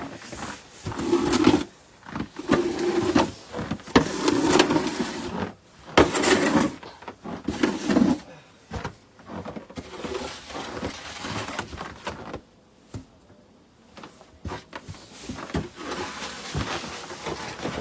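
Repeated scraping and crunching strokes on snowy ground, each about a second long, with scattered clicks between them, as snow and salt are worked over. The strokes ease off for a couple of seconds past the middle.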